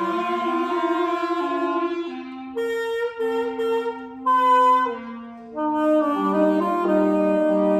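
Free-improvised jazz for clarinet and saxophones: several reeds hold long overlapping notes, thin to one or two sparse held lines near the middle, then swell back into a dense chord of sustained tones.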